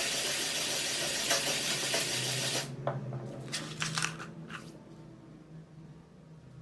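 Meat grinder blade being sharpened against an abrasive, a steady scraping hiss that stops abruptly about two and a half seconds in. A few light metallic clinks follow as the metal parts are handled.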